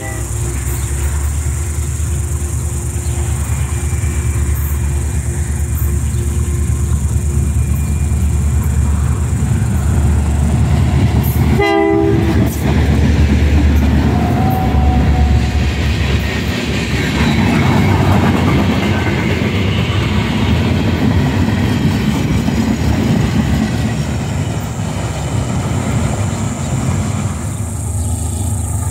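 Diesel freight locomotives rumbling steadily past at close range. About twelve seconds in there is a short horn blast, and from there the passing units are a pair of KCSM EMD GP38-2 road switchers.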